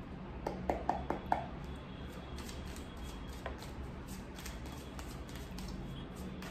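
A tarot deck being shuffled by hand. Four or five sharp clicks come quickly about half a second to a second and a half in, then a steady patter of softer card clicks follows, over a low hum.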